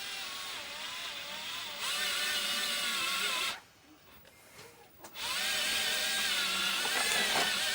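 Power drill driving a thread-repair tap into a pit bike engine block's stripped bolt hole. It runs slowly in two stretches with a pause of about a second and a half between them, and its motor pitch wavers as the speed changes.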